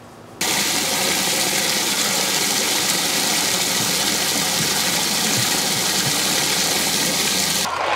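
Steady mechanical hum over a rush of churning water in a plastic tub, starting abruptly about half a second in and cutting off just before the end.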